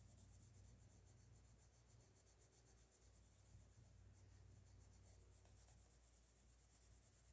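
Faint, steady scratching of a coloured pencil shading heavily on paper to fill in the paper's white tooth.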